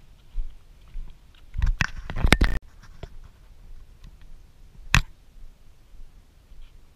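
Camera handling noise: a rapid cluster of sharp clicks and knocks about two seconds in that cuts off abruptly, then a single sharp click around five seconds, over a low rumble.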